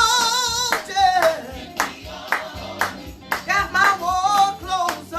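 Church music: a singer holding notes with a wide vibrato over instruments, with a sharp clapping beat about twice a second.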